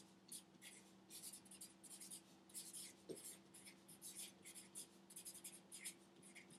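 Faint writing on a board: short strokes of a marker or chalk in quick, irregular succession, over a faint steady hum.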